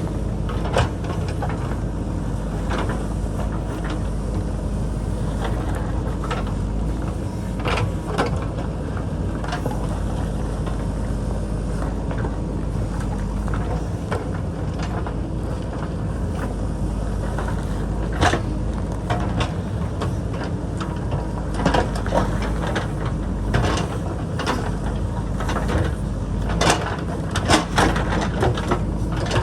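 JCB backhoe loader's diesel engine running steadily under load while the bucket digs into rock, with sharp clanks and knocks of metal on stone scattered throughout, more often in the second half.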